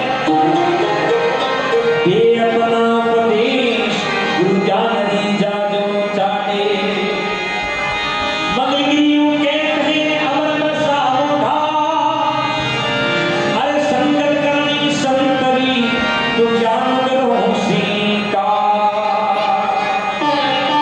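A man singing a Marwari devotional bhajan to his own harmonium accompaniment, with a hand drum keeping the beat.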